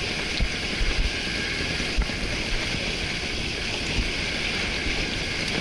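Off-road 4x4 driving along an unpaved mountain track: a steady rushing noise with irregular low thumps.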